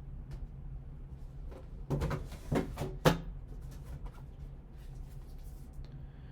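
Hands handling a cardboard trading-card box: a cluster of three short knocks and scrapes about two to three seconds in, over a low steady hum.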